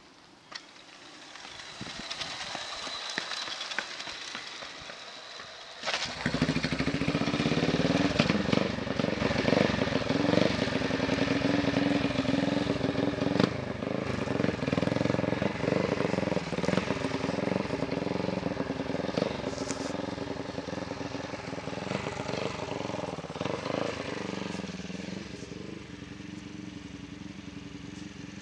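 Rebuilt RE 500 single-cylinder racing motorcycle being push-started, on its first start since a rebuild with a new piston and titanium valves. The engine catches about six seconds in and runs loudly with revs rising and falling, then fades near the end as the bike moves away.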